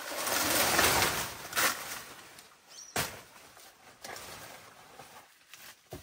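Loud rustling and crackling of banana leaves and stalk as a bunch of bananas is cut and pulled down, dying down after about a second and a half; a single sharp knock about three seconds in, then quieter rustling through the undergrowth.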